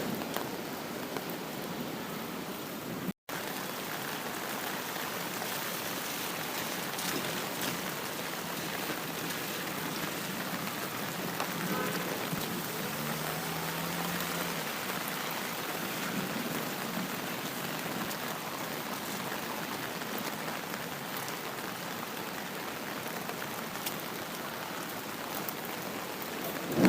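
Steady rain falling, an even hiss of drops on surfaces; the sound cuts out for an instant about three seconds in.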